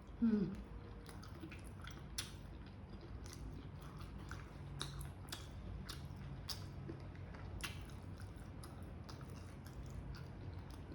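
A person chewing food close to the microphone, with many small wet mouth clicks and smacks, as in eating adobo chicken livers and gizzards. A short falling hum comes near the start.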